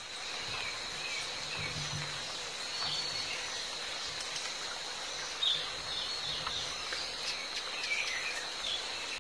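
Outdoor nature ambience: birds chirping in short, scattered calls over a steady high insect drone.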